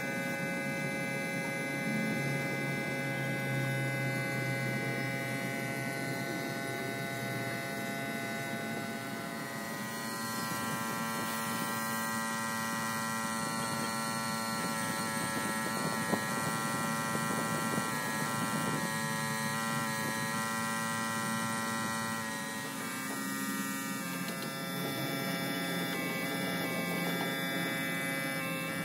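A small motor's steady hum and buzz, with the hiss of a paint spray gun coming in partway through.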